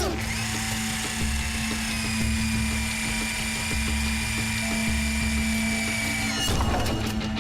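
Cartoon background music with a bass pulse about once a second, over a steady high-pitched mechanical whine like a drill or motor. A sweeping whoosh comes right at the start, another comes about six and a half seconds in, and the whine stops just before the second whoosh.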